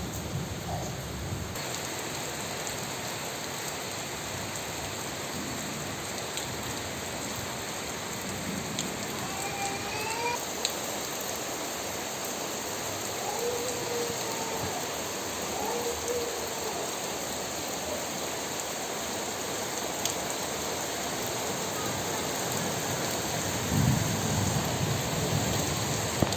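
Heavy rain falling steadily, with a brief low rumble near the end.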